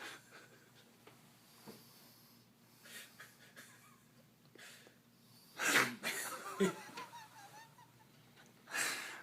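A man snoring in his sleep: two loud snores about three seconds apart, one just past halfway and one near the end, with fainter breaths between.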